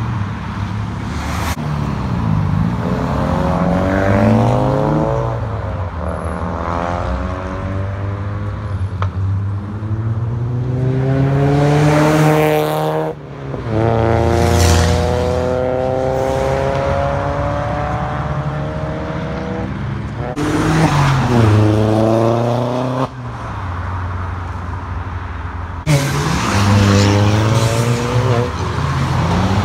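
Cars accelerating hard past one after another, each engine note climbing in pitch and then dropping at a gear change before climbing again, over steady road noise.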